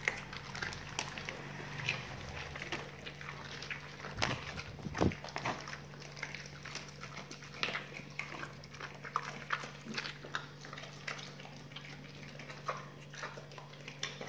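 Pit bulls chewing raw duck necks: wet, irregular crunching with many sharp cracks as the neck bones break.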